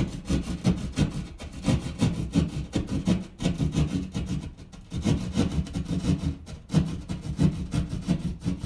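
Hand sheetrock jab saw cutting through drywall in quick back-and-forth strokes, with a couple of short pauses.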